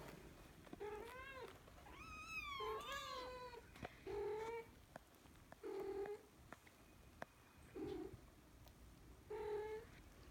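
Cats meowing: about six short, high-pitched calls, some bending up and down in pitch, with two cats calling over each other about two to three seconds in.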